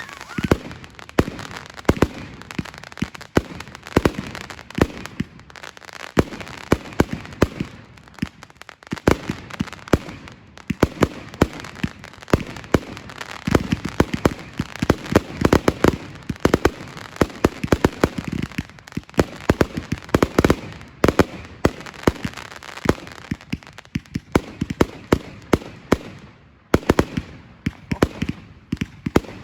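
Fireworks going off: a dense, continuous run of sharp bangs and cracks with deeper booms mixed in, easing off briefly near the end before more bangs.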